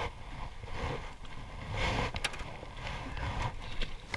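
Rustling and light knocks from handling a mesh landing net in an aluminium boat, with a couple of sharp clicks and a low rumble of wind on the microphone underneath.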